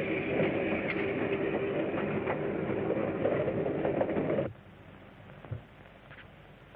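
A train running, a dense rumble with clattering clicks, which cuts off abruptly a little over halfway through. After it there is a faint hiss and a single low thump.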